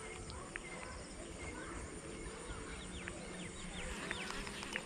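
Birds calling with many short, quick chirps that fall in pitch, scattered through a quiet outdoor background.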